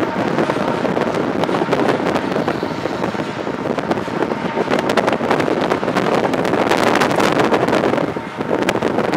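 A coal train's hopper cars and rear diesel locomotive rolling away over the yard switches: steel wheels clattering and clicking over rail joints, with wind noise on the microphone.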